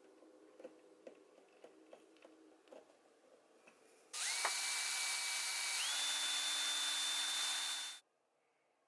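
A few light clicks and taps of handling, then about four seconds in a small power drill starts up and drills the pin hole in the wooden box. Its motor whine climbs, steps up to a higher pitch partway through, and cuts off suddenly.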